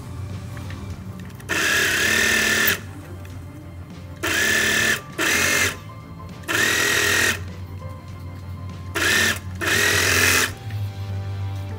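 Overlock serger stitching knit fabric in six short runs, each starting and stopping within about a second, as the seam is guided through by hand.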